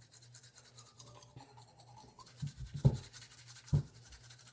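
Toothbrush scrubbing teeth in quick repeated strokes, over a steady low hum. Two dull thumps come about three seconds and four seconds in.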